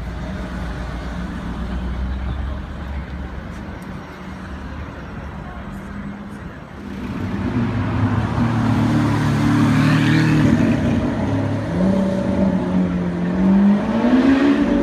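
Lamborghini Aventador V12 passing close and pulling away. The engine comes in loud about seven seconds in, after a stretch of quieter street traffic, and its note climbs in pitch over the last few seconds as it accelerates.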